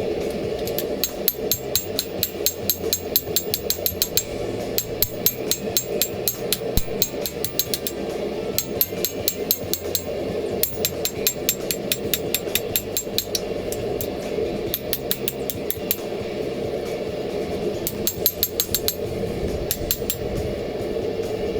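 Ball peen hammer striking hot carbon steel on an anvil in quick runs of ringing blows, about four or five a second, with short pauses between runs, over a steady low rushing background. The blows are drawing out the steel of an old pick axe head.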